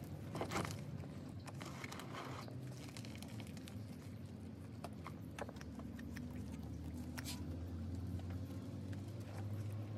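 Soft crunching and scattered small clicks of fingers and a paintbrush working loose potting soil around a bonsai's roots, over a low steady hum.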